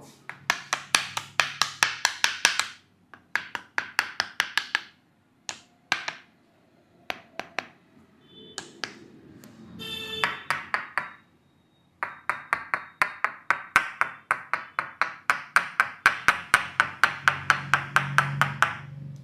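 Barber's hands slapping in a rapid percussive massage, about five or six strikes a second. The slaps come in runs with short pauses, and the longest run fills the last seven seconds.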